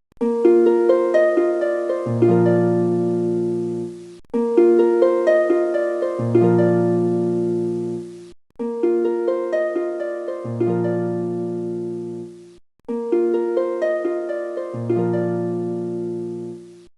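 Background music of gentle plucked-string arpeggios, played as four repeating phrases of about four seconds, each broken by a short pause.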